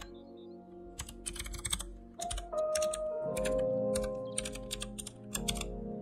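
Typing on a compact RGB-backlit keyboard, key clicks in quick bursts, over background music whose sustained notes grow louder a little over two seconds in.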